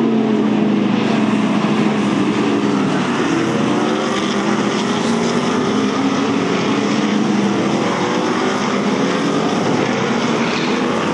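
A pack of NASCAR stock cars' V8 engines running through a turn, several engine notes overlapping. Their pitch drops at the start as the cars come off the throttle, then climbs slowly as they accelerate out of the corner.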